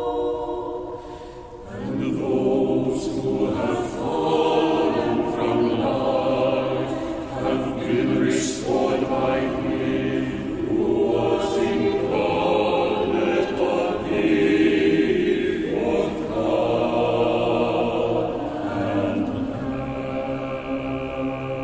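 Four-part mixed choir (soprano, alto, tenor, bass) singing unaccompanied Orthodox choral music. A phrase fades out, and about two seconds in the choir re-enters on 'And those who have fallen from life hath been restored by Him Who was incarnate of thee', then slows into a long held chord on 'both God and man' near the end.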